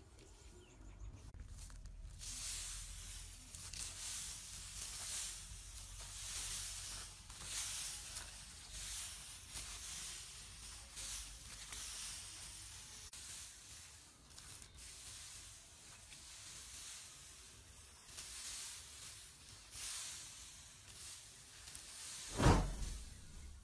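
Dry rice straw rustling and swishing as it is raked into a pile, in repeated swells about once a second. One brief louder bump near the end.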